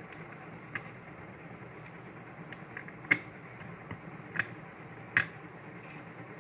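Clear plastic parts of a Tamashii Stage Act Humanoid display stand clicking as the ball-jointed arm pieces are snapped together and pushed into the base. A few sharp clicks, the loudest about three seconds in, with two more a little after four and five seconds.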